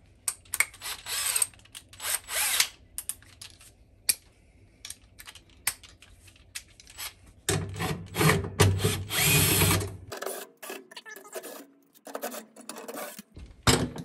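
Cordless drill-driver with a 5/16-inch nut-driver bit backing screws out of a furnace's sheet-metal burner plate: a few short runs, then one longer run of about two and a half seconds past the middle, and a few sharp clicks near the end.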